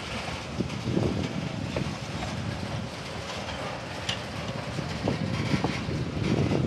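Loaded covered hopper cars rolling past on the rails: a steady low rumble of steel wheels with scattered knocks and clicks, and a sharp click about four seconds in.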